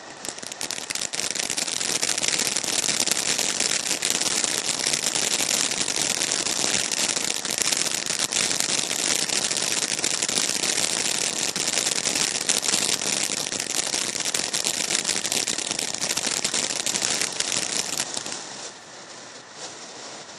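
Vivid Vibrations firework fountain spraying sparks: a loud, dense crackling hiss that swells up over the first couple of seconds and drops back to a quieter hiss near the end.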